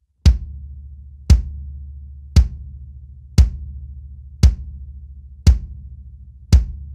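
24-inch PDP Concept bass drum with a Remo Powerstroke 3 coated batter, tuned low and muffled with two blankets inside the shell, heard as a mixed recording: seven single kicks, about one a second. Each has a sharp click of attack and a low boom that rings on until the next kick.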